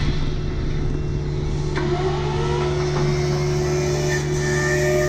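Kubota U55-4 mini excavator's diesel engine running steadily. A whine rises about two seconds in.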